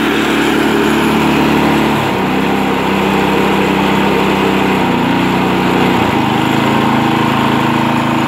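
Harbor Freight Predator 212cc single-cylinder engine on a snowblower, fitted with its stock main jet, running steadily in cold air on partial choke, which on the stock jet it needs to run smoothly. Its running note shifts about two seconds in and again about six seconds in.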